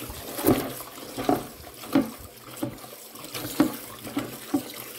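Tap water pouring into a stainless steel pot of spinach leaves while a hand swishes and rubs the leaves, with irregular splashes and sloshes about every half second to second over the steady run of the tap.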